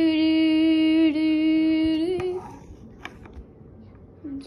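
A girl's voice holds a long, steady sung note with a slight wobble and breaks off about two seconds in. After a pause with a few light clicks, the note starts again at the very end.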